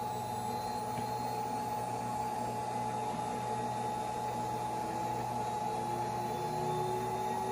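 CNC router spindle, run by a variable frequency drive, spinning up toward 24,000 RPM with no cutting yet: a steady whine, with a faint second tone rising in pitch near the end.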